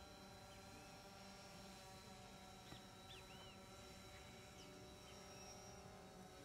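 Near silence: a faint steady hum, with a few short faint bird chirps about halfway through.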